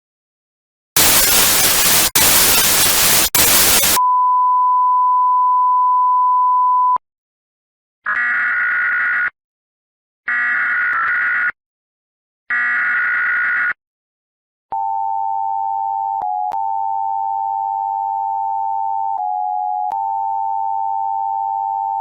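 Emergency Alert System tones: a burst of static hiss, a steady single tone for about three seconds, three short screeching bursts of SAME header data, then the two-tone EAS attention signal held for about eight seconds.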